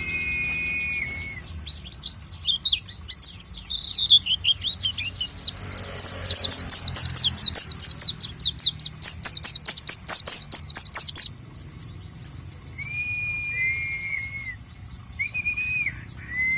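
White-eye (pleci) singing a fast, varied twittering song. A dense run of quick descending high notes stops abruptly about eleven seconds in, and long flat whistled notes come at the start and again near the end.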